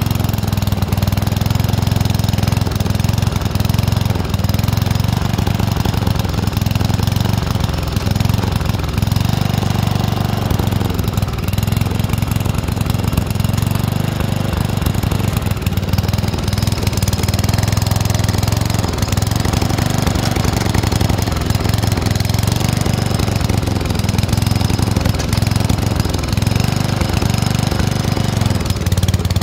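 Riding lawn tractor engine running steadily and loudly while the tractor drags brush on a strap.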